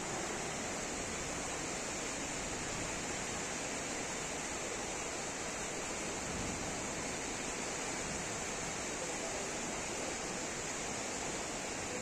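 Steady rush of a fast-flowing, rain-swollen muddy river.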